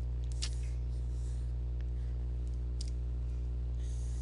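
Steady low electrical hum, with a few faint computer-mouse clicks scattered through it.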